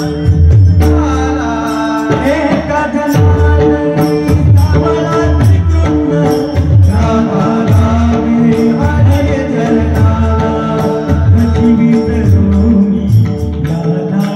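Marathi devotional kirtan music: a male voice singing over a steady held drone, with deep repeated drum strokes and jingling hand cymbals keeping the rhythm.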